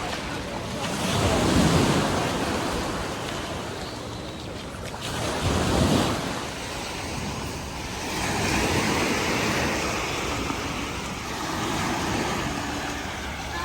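Sea waves washing onto the shore, swelling and falling in surges, with wind on the microphone.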